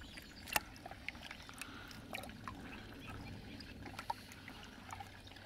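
Water dripping and splashing in a plastic bucket as a hand handles small carp and scoops in for the next one: scattered short drips and little splashes, the sharpest about half a second in.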